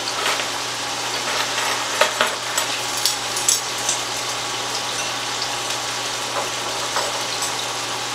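Chicken breasts frying in coconut oil in a pan, a steady sizzle, with a low steady hum under it. A few small clicks and knocks come from a hand citrus squeezer being worked over a glass bowl, about two to three and a half seconds in.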